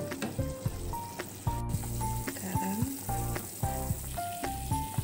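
Snakehead fish stew in sweet soy sauce bubbling and sizzling at a hard boil in a pan. Background music of short melodic notes over a steady bass plays over it.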